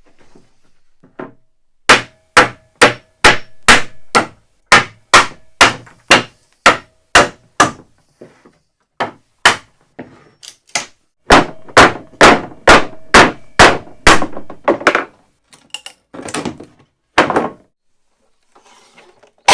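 Hammer blows on wood, knocking the profiled edge moulding off an old wardrobe top: a run of sharp strikes about two a second, with a couple of short pauses, some blows with a brief ring.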